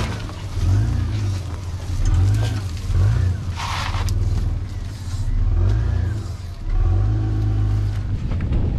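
Toyota 80 Series Land Cruiser's petrol 1FZ-FE straight-six engine revving in repeated surges under load off-road, swelling and easing about every second and a half. A brief hissing rush comes about three and a half seconds in.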